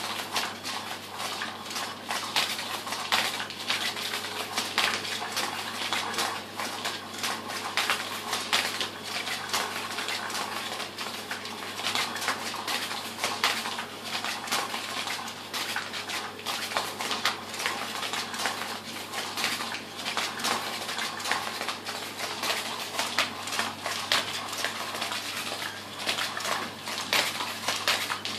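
Battery-powered Cat's Meow cat toy running: a steady motor hum under a continuous clatter of small clicks and rustles as the wand spins the mouse tail around under the nylon cover.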